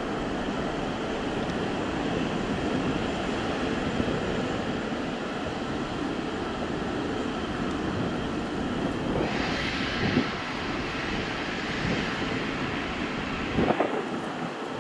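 Boeing 787-9 Dreamliner's twin jet engines at takeoff thrust on the takeoff roll, a steady distant rumble; from about nine seconds in a higher hiss joins as the aircraft comes nearer. Two brief louder bumps, about ten seconds in and near the end.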